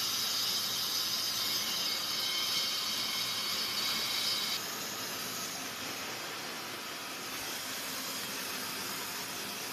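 Log band sawmill running: a steady hiss with a high whine on top that cuts off abruptly about four and a half seconds in, leaving the steady hiss.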